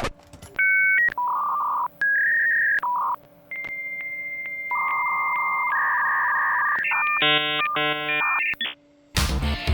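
Dial-up modem handshake: a few short dialing tones, then a steady high answer tone that clicks at regular intervals, hissing data tones and a harsh buzzing, cutting off suddenly near the end.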